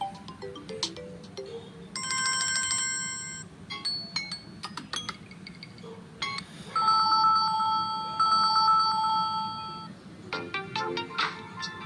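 Stock ringtones of a Samsung Galaxy A04 phone playing one after another: short melodic tones, a held chime, a long trilling two-note ring, then quick plucked notes near the end.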